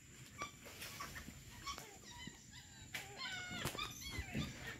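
White-faced capuchin monkeys giving short, squeaky chirps, coming in a quick run in the middle and second half, with a few light taps.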